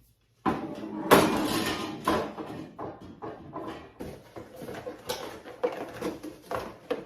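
Hands handling a metal window bird feeder and its packaging: an uneven run of clicks, knocks and rustles, loudest about a second in.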